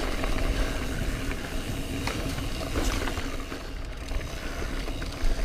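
Trek Remedy 8 full-suspension mountain bike rolling over a rooty dirt trail: steady tyre and trail noise with a low rumble, and scattered clicks and rattles from the bike.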